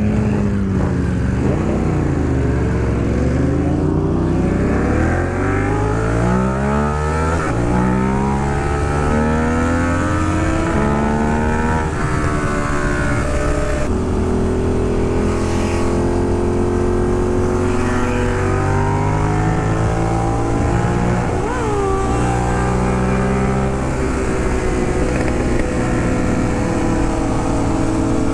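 Ducati Monster 821's Testastretta L-twin engine pulling away and accelerating, its pitch climbing and dropping at gear changes over the first half. It then runs at a steadier road speed with small changes in pitch.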